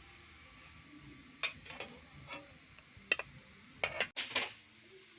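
Scattered light clicks and clinks of small hard objects, about half a dozen, coming closer together near the end.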